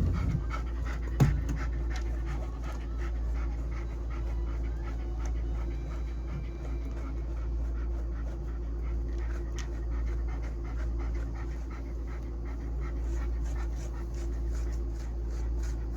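Mixed-breed dog panting steadily through the whole stretch, over a steady low hum that fits the grooming dryer. A single sharp knock about a second in.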